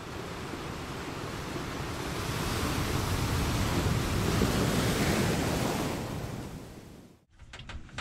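Rushing ocean surf that swells to a peak midway and fades away, breaking off about seven seconds in. Right after it, a few sharp knocks near the end.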